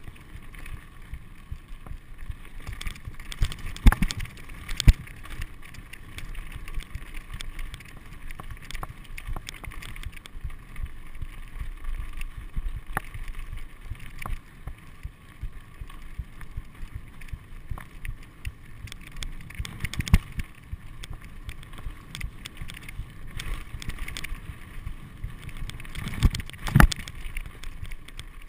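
Mountain bike riding over rocky dirt singletrack: a steady rolling rattle from the tyres and bike, broken by sharp knocks as it hits bumps, with a few loud ones a few seconds in, around the middle and near the end.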